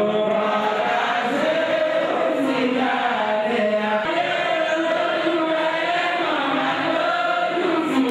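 Voices chanting in long, wavering held notes, a sung vocal piece rather than speech.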